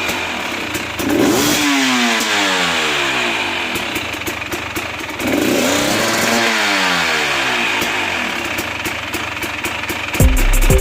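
GasGas EC300's 300cc single-cylinder two-stroke engine revved twice: each time the pitch jumps up quickly, then slowly winds back down over a few seconds. Music comes in near the end.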